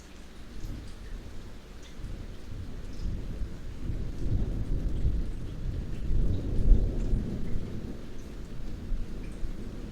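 Distant thunder rumbling, building about two seconds in to a peak around six to seven seconds before easing off, over light rain with scattered drips.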